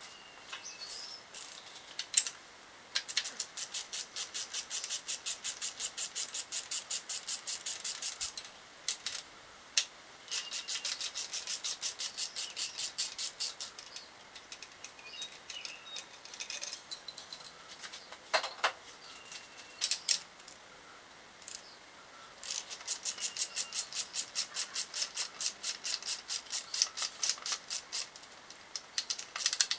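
Hand socket ratchet clicking in three long, rapid runs as bolts are wound out of the alternator and water pump mounts of an LS V8, with a few sharp metal clinks of tools between the runs.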